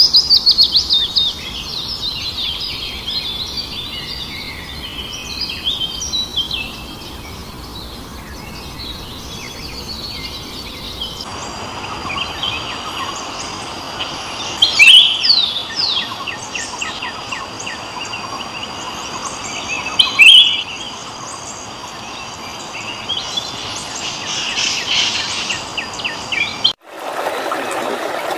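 Wild birds singing and chirping, many short overlapping calls and trills with a few louder chirps. The birdsong changes abruptly about eleven seconds in. Near the end it cuts out for a moment and gives way to a steady rush of running water.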